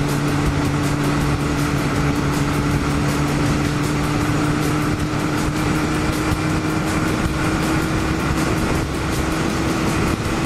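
Honda CB1100SF X-11's inline-four engine running at a steady cruising speed, with wind rushing past the microphone.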